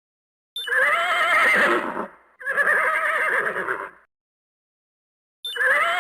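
A farm animal calling three times with near-identical quavering calls, each about a second and a half long, separated by silence.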